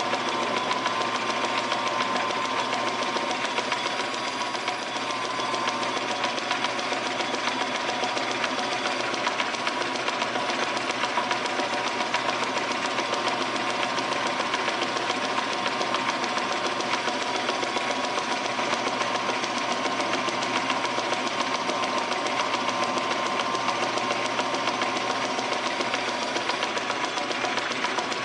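Metal lathe running and taking a cut on a metal pulley blank held in the chuck, with a steady high whine over the noise of the machine and the cut.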